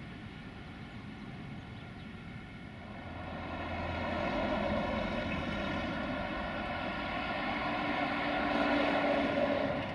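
Diesel locomotive engine, an Electroputere LDE2100 (060-DA) with its Sulzer diesel, droning at a steady pitch out of sight, growing louder from about three seconds in as it approaches. The sound cuts off suddenly near the end.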